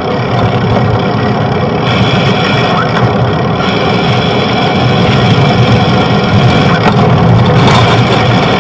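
Steady, loud low rumble of road traffic and engine noise, heard from a bicycle moving through city streets.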